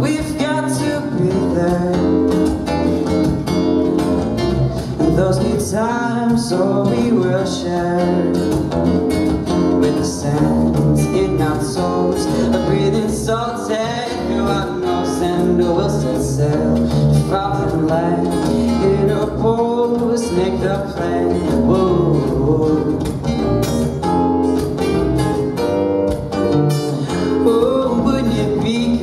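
Male voice singing an acoustic pop-folk song over a strummed acoustic guitar and a bass guitar, played live in a duo.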